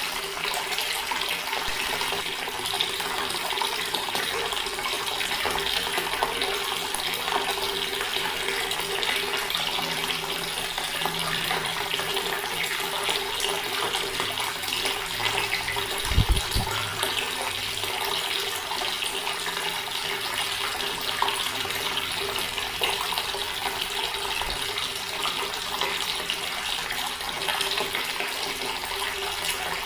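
Water running steadily from an open tap, an even splashing rush with a faint low tone underneath. A single brief low thump about halfway through.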